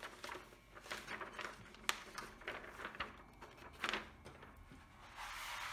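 A thin cover sheet rustling and crinkling as it is handled and laid over a sticky diamond painting canvas, with a sharp tap about two seconds in and a longer sliding rustle near the end.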